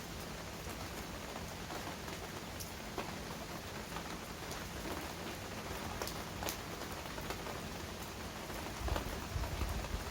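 Heavy rain falling steadily, a dense hiss with scattered sharp drop hits. A low rumble builds near the end.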